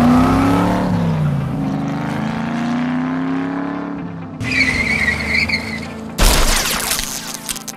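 Cars accelerating hard from a standing start: engine revs rise, dip at a gear shift about a second in, then climb again and fade. A wavering tire squeal comes about halfway through, and a sudden loud rush of noise near the end.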